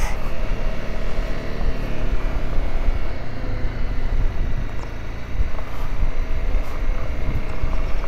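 Honda CRF250 Rally's single-cylinder engine running at low road speed on a gravel road, buried under a heavy, gusting rumble of wind on the microphone.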